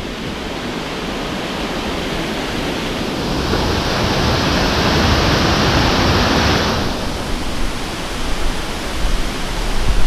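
Steady rush of a strongly flowing waterfall, a constant hiss of falling water that swells louder for a few seconds midway through.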